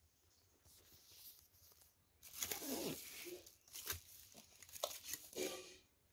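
Brown honeycomb kraft-paper packing wrap being pulled apart and crumpled by hand, in a few rustling, tearing bursts that start about two seconds in.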